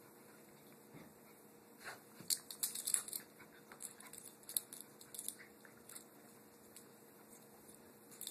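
A Shiba Inu puppy and another small dog wrestling on carpet: a burst of scuffling, rustling and light sharp clicks through the middle, loudest about three seconds in, with no growls or barks.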